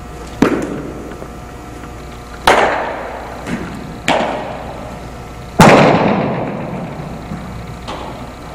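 Four sharp cracks of baseball impacts in a large, echoing indoor space, roughly one every second and a half, each ringing out in a long echo; the loudest comes just past halfway.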